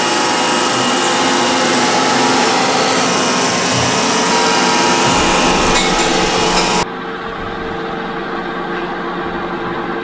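iRobot Roomba i7+ robot vacuum running up close with a loud, steady whir that drops to a quieter steady hum about seven seconds in.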